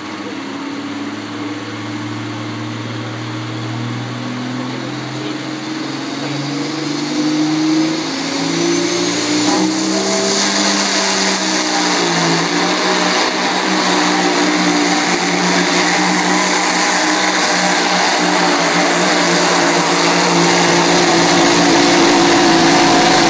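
Hot rod semi truck's diesel engine at full power pulling a weight-transfer sled. Its pitch climbs over the first ten seconds or so, with a rising high whistle, then holds high and steady while the sound grows louder toward the end.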